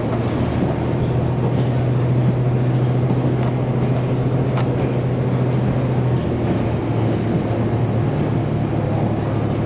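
Diesel railcar running along the line, a steady low engine drone over the rumble of wheels on rail, the engine note changing about six seconds in.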